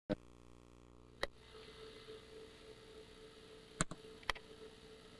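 Faint steady hum and hiss of an old home-video tape, broken by four sharp clicks: one at the very start, one just over a second in and two close together near the end. A low buzzing hum in the first second gives way to a single steady tone.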